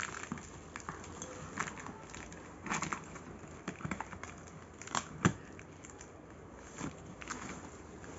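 Scissors snipping through the packing tape and plastic wrapping of a parcel, with irregular crinkling and crackling as the wrapping is handled; a sharp snap about five seconds in is the loudest sound.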